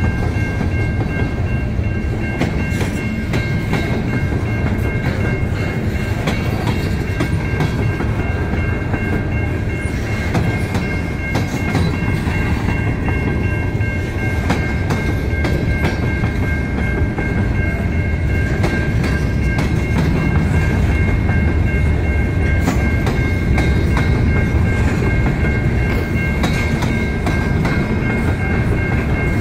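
Freight train of covered grain hopper cars rolling past close by: a steady heavy rumble of steel wheels on rail, with scattered clicks of the wheels over rail joints and a thin steady high whine above it.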